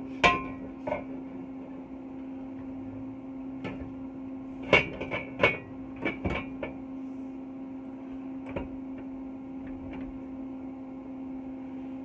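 Square steel tubing for a subframe connector being knocked and set against the car's steel underbody and frame rail: irregular sharp metallic clanks, some ringing briefly. One lands about a quarter second in, a quick cluster comes around five to six and a half seconds in, and a last one near eight and a half seconds, over a steady low hum.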